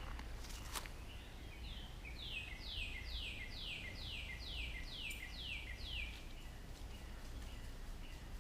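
A songbird singing a quick run of about nine repeated down-slurred whistles, each ending in a short lower note, for about five seconds, over a steady low hum.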